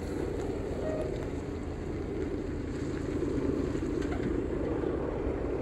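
Wind buffeting the microphone: a steady low rumble with no distinct sounds in it.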